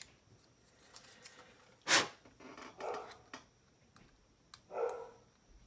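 Rounded hobby-knife blade scraping a plastic model-kit part in a few short strokes, cleaning out ejector-pin marks; one sharper, louder scrape comes about two seconds in.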